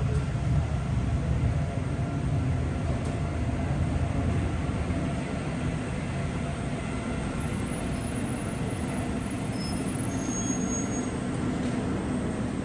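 Ottawa O-Train Line 1 light-rail train: a steady low rumble with a few faint steady hum tones over it, easing slightly after about five seconds.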